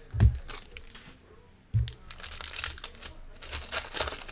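Foil trading-card pack wrappers crinkling and tearing as they are opened and handled. A loud dull thump just after the start and another just under two seconds in.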